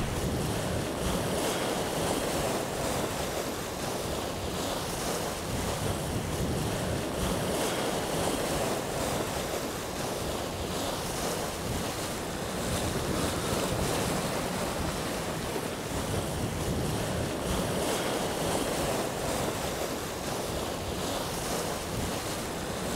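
Steady rush of wind and water aboard a sailing yacht under sail at speed, the sea running along the hull, with wind noise on the microphone.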